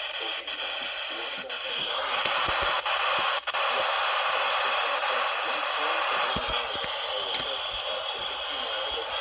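NOAA weather radio receiver hissing with static from its speaker. The hiss grows louder about two seconds in and eases back after about six seconds.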